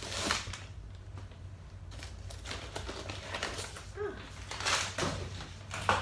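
Crinkling and rustling of a silver insulated plastic mailer bag as it is pulled off a fleece hoodie and tossed aside, with paper rustling; the rustle comes in irregular bursts, loudest near the start and again near the end.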